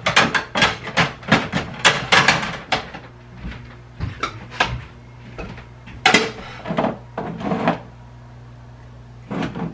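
Household knocks and clatter: a quick run of sharp clacks for about three seconds, then a few scattered knocks, like things being handled and set down around a kitchen.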